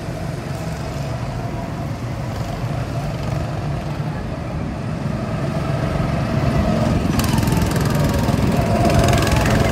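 Several go-kart engines running steadily as the karts drive around the track, growing louder as karts come close near the end.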